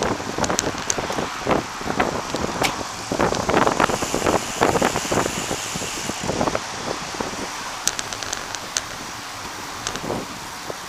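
Riding noise from a bicycle on a paved path: wind rushing over the microphone with tyre hum, broken by many short knocks and rattles, thickest in the first half.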